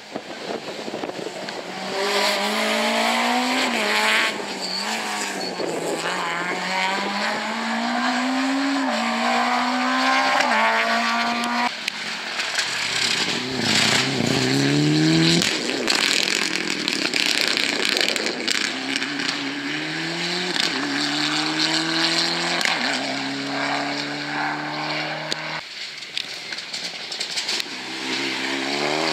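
Several rally cars passing in turn, one of them a Mitsubishi Lancer Evolution, each accelerating hard: the engine note climbs, drops at a gear change and climbs again through the gears.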